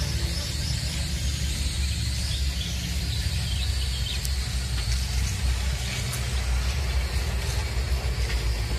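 Wind buffeting the microphone, a fluctuating low rumble, with birds chirping in short high calls now and then.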